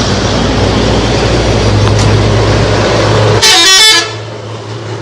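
A bus engine running with a steady rumble. About three and a half seconds in, a telolet horn (a multi-note musical bus horn) sounds a brief stepping melody for about half a second.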